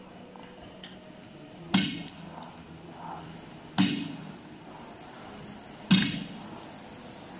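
Barbell loaded with bumper plates dropped onto a rubber gym floor three times, about two seconds apart, each a sharp thud with a short rattle after it.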